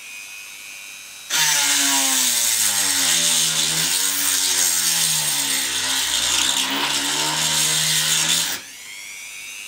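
Dremel rotary tool running free, then cutting into a workpiece from about a second in, loud and gritty with its motor pitch dipping and wavering under the load, before it lifts off and runs free again near the end.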